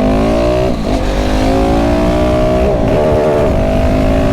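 KTM 690 SMC R's single-cylinder LC4 engine, breathing through a full LeoVince exhaust, accelerating hard at full throttle, with the revs climbing and dropping in two brief upshifts, about a second in and about three seconds in.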